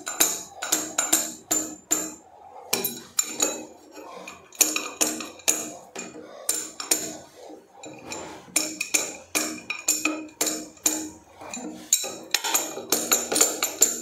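Light, rapid taps of a metal spanner on the rubber washer of a toilet's flush bend pipe, driving the Teflon-taped washer into the commode inlet to seal a leak. Each tap is a short metallic clink, about three or four a second, in runs with brief pauses.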